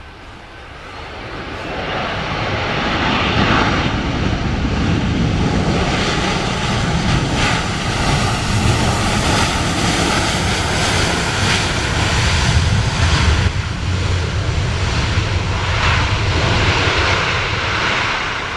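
Boeing 737-500's twin CFM56 turbofan engines running at high power as the airliner rolls along the runway past the listener. The jet noise builds over the first couple of seconds, then stays loud and steady, with a faint whine above it.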